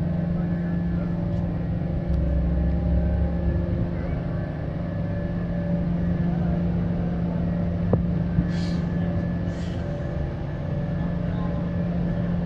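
Steady low drone of a passing inland cargo ship's diesel engine, with a deeper rumble for a second or two early on and two short high hisses about a second apart past the middle.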